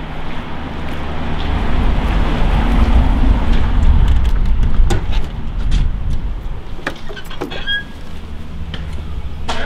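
Street traffic: a car passing close by, its rumble swelling to a peak about halfway through and then fading, with scattered short clicks and a sharp knock near the end.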